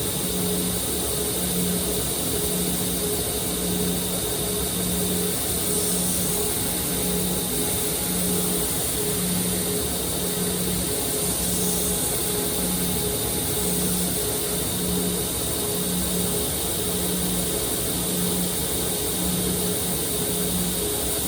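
A powered sharpening grinder running steadily, used for thinning or regrinding a knife: a constant hiss with a low hum that pulses on and off about once a second.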